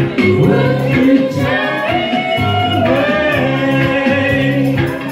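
A song: voices singing long held notes over an instrumental backing track.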